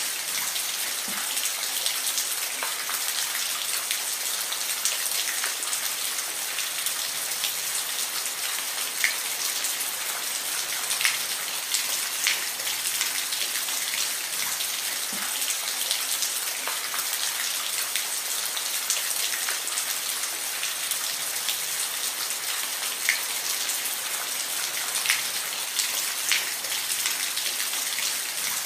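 Steady rain falling, an even hiss with scattered individual drops ticking close by, a few louder than the rest.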